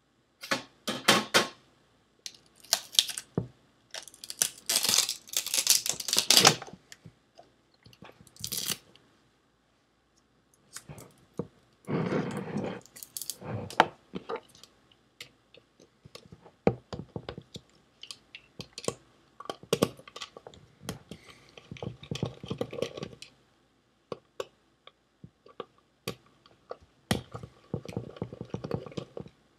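Handling and tool noise from taking apart a Seagate ST410800N hard drive: irregular clatter, knocks and clicks of hands and a screwdriver on its metal casing, loudest in the first several seconds.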